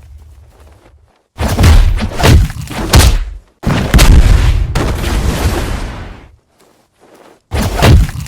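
Loud, bass-heavy booming bursts, made up of a run of hits about 1.5 s in, a longer boom fading away from about 4 s, and another burst starting near the end.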